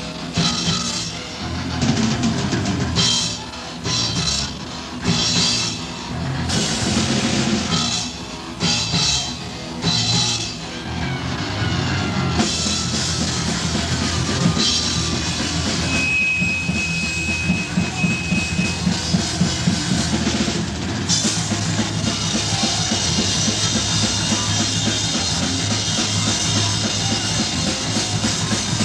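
Heavy metal band playing distorted electric guitar, bass and drum kit. For the first ten seconds or so the riff comes in stop-start hits with short gaps. After that it settles into continuous playing over a fast drum beat, with a high note held for a few seconds midway.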